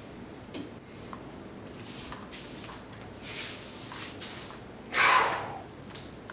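Quiet indoor room tone with a few short hissy bursts, the loudest about five seconds in.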